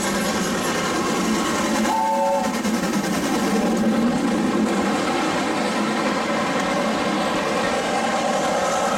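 RSH industrial steam tank locomotive working hard through a station with its train, giving a short whistle blast about two seconds in, then its carriages rumbling close past.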